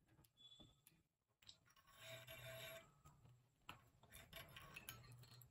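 Faint handling sounds of an industrial sewing machine being threaded by hand: thread drawn through the guides, light rubbing and small clicks. A brief low hum comes about two seconds in and again near the end.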